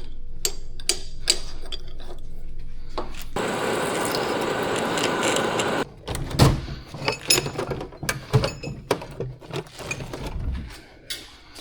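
Machine-shop work noise. A steady low hum with light clicks runs for about three seconds. Then comes a loud hissing rush lasting about two and a half seconds, followed by scattered sharp clicks and knocks of metal tools being handled.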